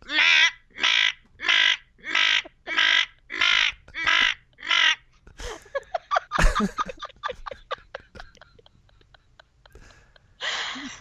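Eight crow-like caws in a steady rhythm, about one and a half a second. They are followed by a few scattered short sounds, the loudest a thump about six and a half seconds in.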